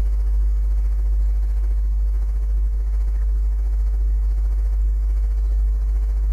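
Steady low electrical hum with a few faint higher hum tones above it, unchanging throughout.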